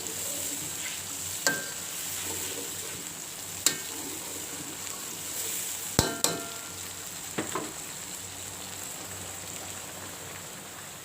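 Food sizzling in a pan while it is stirred, with about five sharp clinks of the stirring utensil against the pan.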